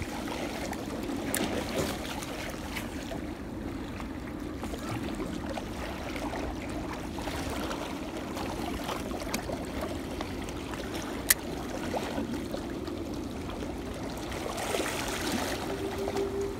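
Seawater lapping and sloshing while a spinning reel is cranked to retrieve a lure, with a single sharp click about eleven seconds in. A steady hum comes in near the end.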